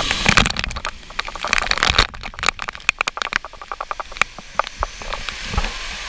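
Waterfall spray pelting an action camera's waterproof housing: a dense, irregular patter of sharp splats and crackles from drops striking close to the microphone, thinning to scattered hits after about three and a half seconds, over the rushing hiss of the falling water.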